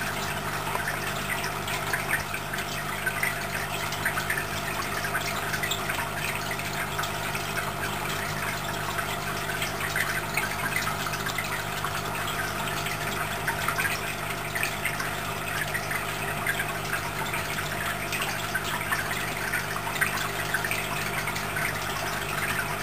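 Aquarium pump running with a steady hum, with water bubbling and trickling in small crackles over it.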